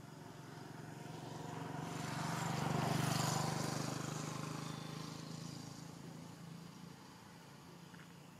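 A motor vehicle passing by, unseen: its engine hum and road noise swell to a peak about three seconds in, then fade away.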